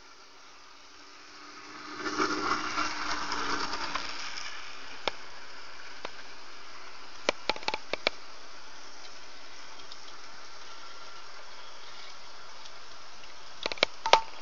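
H0-scale model train (Burlington Northern F45 locomotives with a string of freight cars) running on the layout: a steady running hiss that swells into a louder stretch with a couple of held tones about two seconds in. Sharp clicks follow, a quick run of five about seven seconds in and another cluster near the end.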